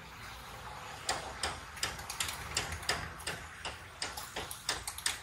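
Quick, irregular clicks and taps of metal against the stall's steel pots and containers as they are handled, starting about a second in and coming several times a second.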